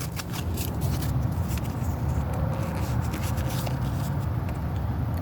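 Pokémon trading cards and their foil booster-pack wrapper being handled: steady rustling and scraping of cards sliding against each other, with small crinkling clicks.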